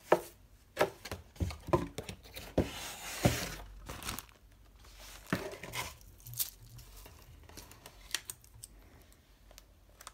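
Paper envelopes and packaging rustling and crinkling as they are lifted out and handled, with scattered sharp taps. It is busiest in the first four seconds and sparser after.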